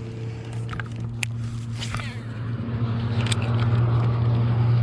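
Steady low hum of a boat motor at an unchanging pitch, growing louder through the second half. A few sharp clicks sound over it.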